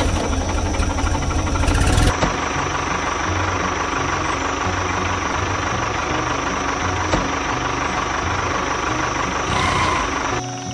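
Diesel tractor engine running with a knocking chug, louder and harsher for the first two seconds, then steady, dropping away near the end.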